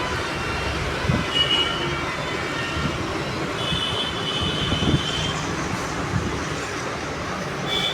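Steady mechanical running noise with short high-pitched squeals, the longest a little past halfway, and a few knocks.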